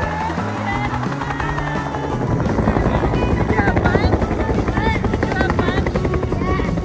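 Helicopter rotor beating rapidly in fast, even pulses, getting louder about two seconds in, with music playing underneath.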